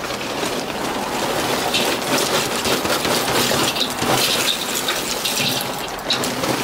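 Lump charcoal poured from a paper bag into a steel kettle grill, the chunks clattering onto the old coals in a dense, steady rattle.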